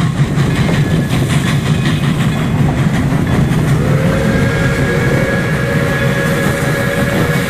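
Pere Marquette 1225, a 2-8-4 Berkshire steam locomotive, approaching with a steady low rumble. About four seconds in, its steam whistle starts a long, held blast.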